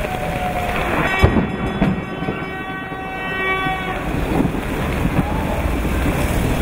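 Steam whistle of a steam road roller sounding one steady blast of about three seconds, starting about a second in, over the steady hiss of heavy rain and passing vehicles.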